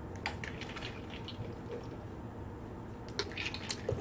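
A utensil stirring a soft mashed-avocado mixture in a bowl: faint wet squishing with light clicks of the utensil against the bowl, coming more often near the end.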